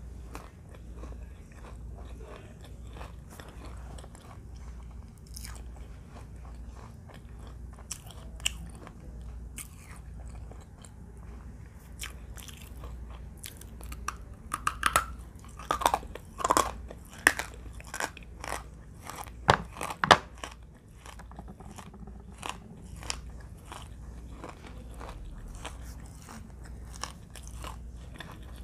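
Close-up biting and crunching of hard, dry eating clay chunks, with chewing between bites; the loudest, crispest crunches come in a cluster around the middle.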